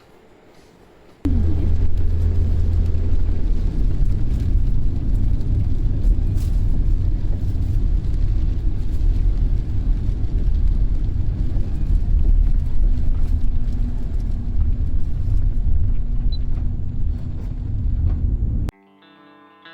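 Loud, steady low rumble of a car on the road, starting suddenly about a second in and cutting off suddenly near the end.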